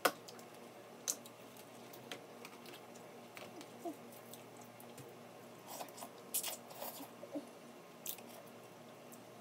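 Snow crab shells cracking and crunching as the legs are broken open by hand and eaten, with chewing between. Sharp cracks come at the start and about a second in, and then a quick cluster of them in the second half.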